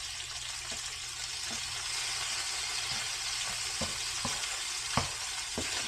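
Snapper fillet frying in butter and oil in a pan with tomatoes: a steady sizzle, with a handful of light clicks scattered through it.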